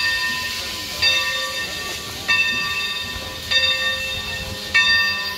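Steam locomotive bell on Santa Fe 2926 ringing steadily as the engine rolls, one clang about every 1.2 seconds, each ringing on into the next.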